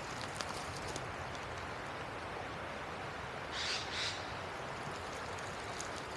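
A wild bird gives two short harsh calls in quick succession about three and a half seconds in, over a steady outdoor hiss.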